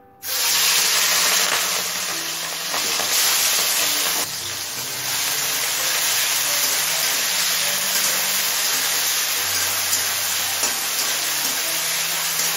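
Peeled prawns hitting hot mustard oil in a kadai, breaking at once into a loud sizzle. They keep frying with a steady hiss while a spatula stirs them.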